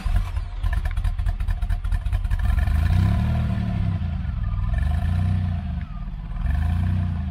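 DeLorean DMC-12's V6 engine, freshly started, running at the exhaust with a clattery idle, then revved three times, each rev rising and falling back, about two seconds apart.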